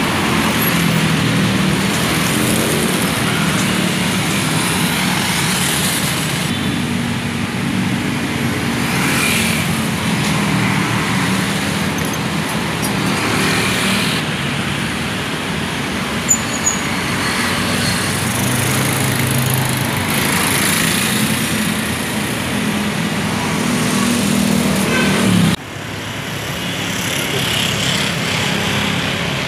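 City street traffic: motorcycles and cars driving past close by, engines running, swelling and fading as each passes. Near the end it drops abruptly to quieter traffic.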